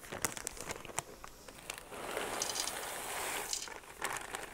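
Plastic bag of frozen corn crinkling as it is handled and tipped into a steel pot, with scattered small clicks of kernels. About halfway through, a rustling rush lasts for a second and a half.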